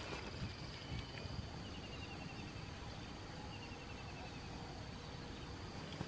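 Soft footsteps and rustling in grass along a rice-paddy bank, a few knocks in the first second. Two short, rapid chirping trills sound faintly in the background, about two and four seconds in.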